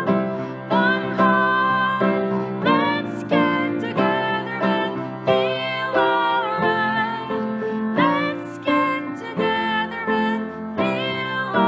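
Music: a song with piano accompaniment and a woman singing.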